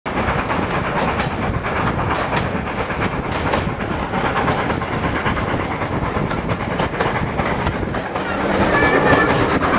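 Steam-hauled heritage train coaches running at speed, heard through an open carriage window: a steady rush of running noise with wheels clattering over the rails, a little louder near the end.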